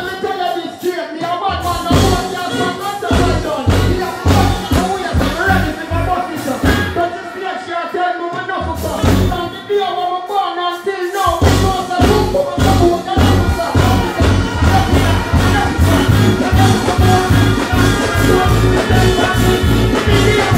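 Live reggae band music with a male singer on microphone. The bass and kick drum drop out for a few seconds at a time in the first half, then come back in steadily for the rest.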